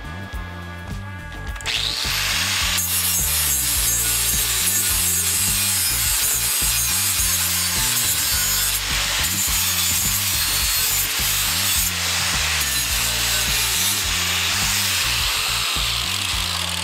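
Corded angle grinder grinding down fresh welds on a steel square-tube frame, starting about two seconds in and running steadily with a loud, high hiss. Background music with a steady low beat plays underneath.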